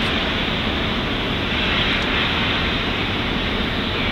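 Steam locomotive releasing steam: a steady hiss and rush of escaping steam with no exhaust beats.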